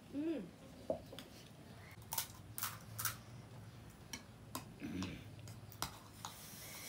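Crisp pani puri shells being cracked open and chewed, with a metal spoon scraping and clinking in a ceramic bowl: a run of sharp separate clicks and crackles.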